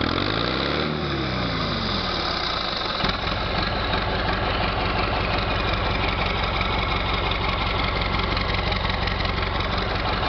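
Ford 7610 tractor's diesel engine, heard close to its open vertical exhaust stack: a brief rev about a second in that falls back, then a steady idle with an even pulse.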